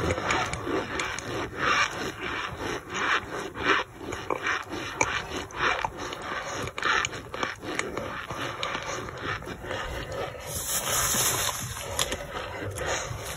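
Gloved hand crumbling and squeezing dry, powdery boiled-brick chunks in a plastic tub: a steady run of soft crunches and scrapes, a couple a second, brighter near the end.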